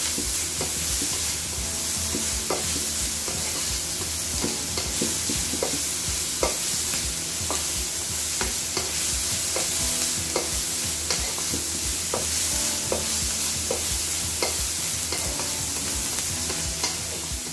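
Sliced onions sizzling in hot oil in a kadai as they are sautéed soft, with a steady hiss. A plastic spatula stirs them, scraping and tapping against the pan at irregular moments.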